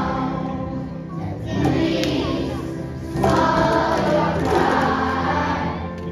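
Fourth-grade children's choir singing together, many voices holding sustained notes; the singing grows louder about three seconds in.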